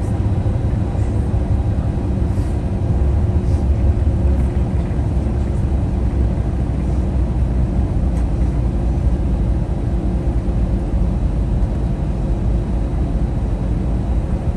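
Steady low rumble of an Airbus A321-200 heard inside the passenger cabin as the jet rolls on the ground after landing: engine and wheel noise with a constant hum, swelling slightly a few seconds in.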